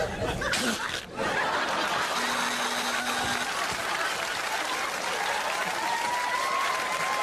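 Studio audience applauding and laughing: a steady wash of clapping after an abrupt break about a second in.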